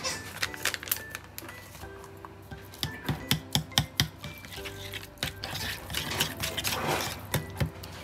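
Background music with clinks and clatter of dishes and cutlery. A quick run of sharp clinks comes about three to four seconds in.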